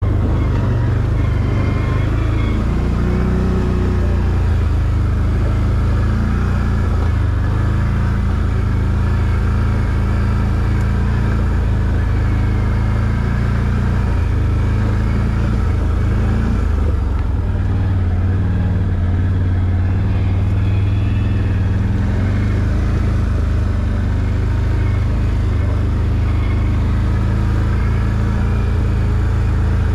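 ATV engine running at low trail speed, its note wavering a little up and down as the throttle changes.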